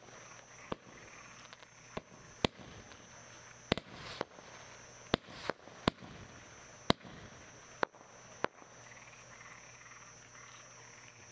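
Low-noise girândola fireworks battery of 20 mm tubes firing: about ten soft, sharp pops at irregular intervals, the last about two-thirds of the way through. The small shots are made to pop softly rather than bang. A steady high-pitched whine runs underneath.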